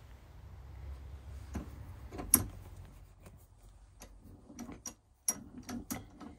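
Sharp metal clicks and clinks from a hand moving the sliding handle bar of a Central Machinery bench vise, the loudest about two and a half seconds in and a quick cluster near the end, over a low rumble.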